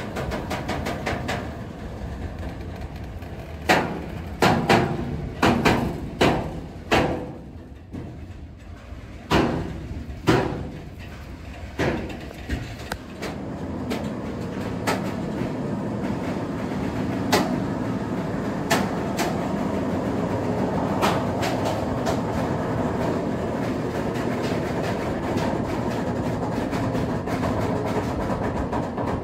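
Long intermodal freight train of pocket wagons loaded with semi-trailers rolling past close by. For the first dozen seconds the wagons rumble with a string of loud, irregular knocks and clanks. After that comes a steady rumble of passing wagons that cuts off at the end.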